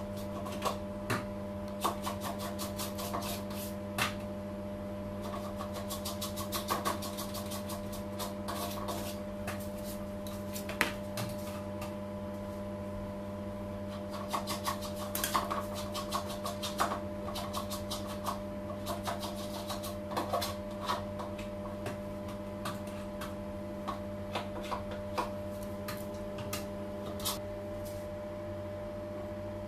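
Steady machine hum with scattered light clicks, taps and scrapes as a metal palette knife and hands work glaze over a cake on a turntable; the clicks come thickest about halfway through.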